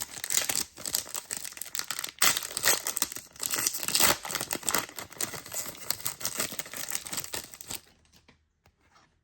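A trading card pack wrapper being torn open and crinkled by hand, a dense crackling rustle that stops about eight seconds in.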